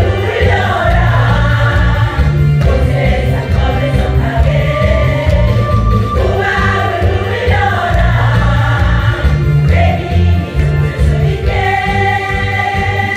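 Women's choir singing together in harmony over an instrumental accompaniment with a strong, steady bass line.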